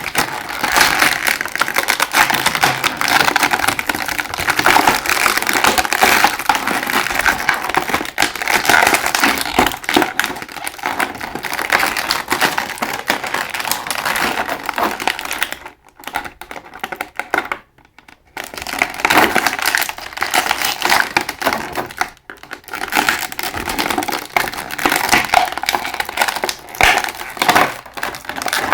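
Action figure packaging being handled and opened: continuous crinkling and rustling, with short pauses about two-thirds of the way through.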